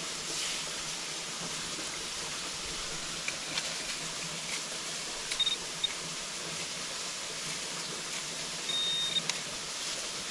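Metal-detecting pinpointer beeping in short high tones: a quick double beep about five seconds in and a longer beep near nine seconds, probing a dug hole for a target. Under it runs the steady rush of a creek, with a few faint clicks.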